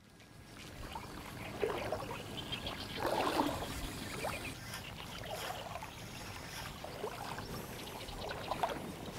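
Water sloshing and trickling in a shallow river, fading in from silence over the first second.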